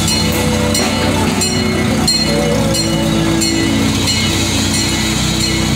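Miniature ride train moving along, its engine running with a steady low hum and light regular clicks from the running gear.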